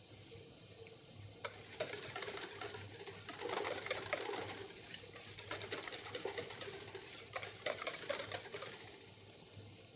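Wire whisk whipping hollandaise sauce in a stainless steel bowl, with quick clicks and scraping of the wires against the metal. It starts about a second and a half in and stops near the end.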